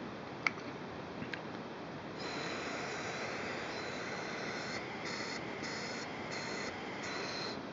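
Air hissing through the passages of a Keihin motorcycle carburettor body as it is blown into through the pilot-screw port; the air coming through shows the passage into the main body is clear. A couple of small handling ticks come first, then a steady hiss starts about two seconds in, and near the end its higher part cuts in and out several times.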